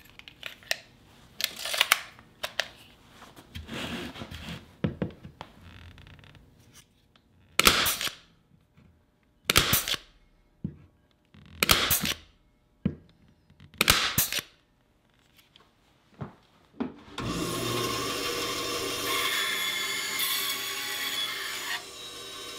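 Clicks and rattles of a Porter-Cable pneumatic stapler being loaded with half-inch staples, then four sharp shots about two seconds apart as it drives staples into wood. For the last few seconds a band saw cuts through the stapled wood with a steady sound.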